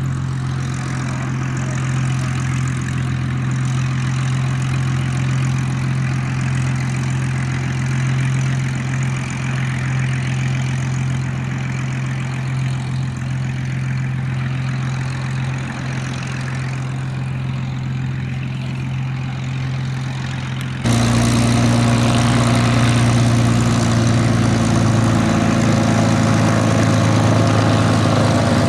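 Hawker Hurricane's Merlin V12 piston engine running steadily at low power, with its propeller turning. About 21 seconds in it suddenly becomes louder.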